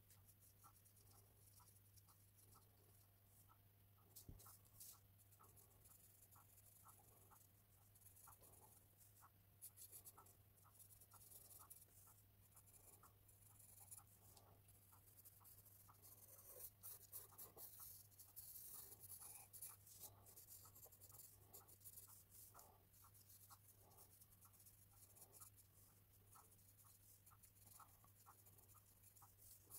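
Faint scratching of a Wolff's carbon pencil on hot-pressed paper in many short, quick strokes, a few a second, over a low steady hum.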